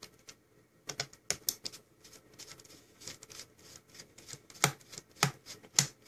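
Kobalt ratcheting screwdriver backing out a captive screw on a laptop's plastic memory-bay cover: sharp, irregular ratchet clicks, a few close together about a second in and more spaced out near the end.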